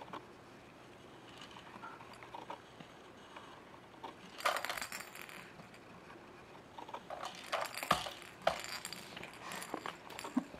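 Plastic baby toys clattering and clinking as a baby handles them, in short scattered knocks and rattles, with one brief burst about four and a half seconds in and a run of clicks in the second half.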